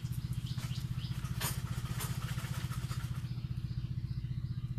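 A small engine running steadily at idle, a low, fast, even pulse, with a brief light click about one and a half seconds in.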